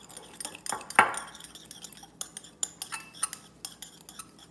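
Small metal spoon stirring a dry spice rub in a ceramic bowl: gritty scraping and repeated light clinks of metal on the bowl, with one louder ringing clink about a second in.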